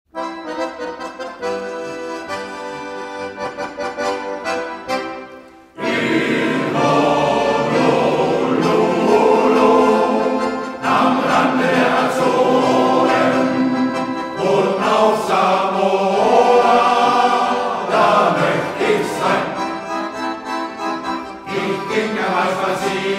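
Shanty choir performing: accordions play a tune, and the choir's voices join in about six seconds in and sing along with them.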